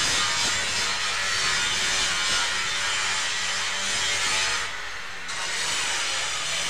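Hand tool scraping and carving into a gypsum plaster cornice, a steady rasping scrape that lets up briefly about five seconds in.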